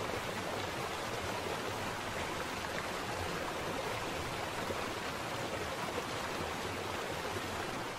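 Steady rush of flowing river water, an even hiss without separate splashes.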